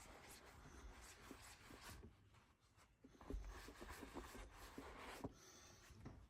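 Faint rubbing of a rag on a subwoofer's chrome dust cap, wiping off the last of the paint residue loosened by brake cleaner, in two stretches with a short pause about two and a half seconds in.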